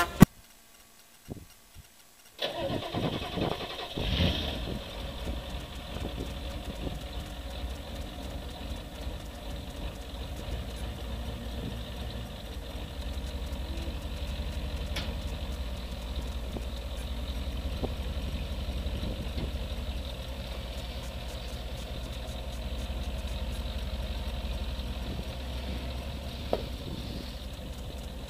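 A vehicle engine starts about two and a half seconds in, runs a little louder for a moment, then settles into a steady idle.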